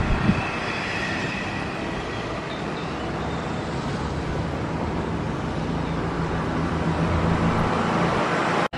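Steady outdoor street noise: an even rumble with a faint low hum.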